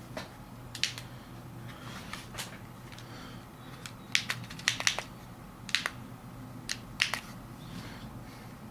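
Irregular sharp clicks and crackles of things being handled, some in quick clusters, over a low steady hum.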